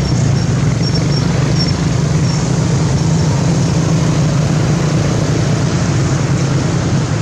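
A motor vehicle engine running steadily: a loud low hum under a constant noisy wash, with no change in pitch.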